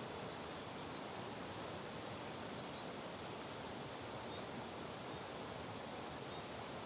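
Steady rushing of fast-flowing river water, an even hiss with no change.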